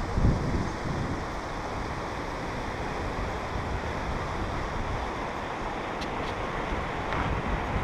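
Steady rushing noise of a fast-flowing mountain stream, with wind buffeting the microphone near the start.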